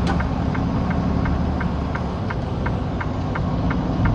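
Semi-truck engine running, heard inside the cab as a steady low rumble, with light regular ticks about three times a second.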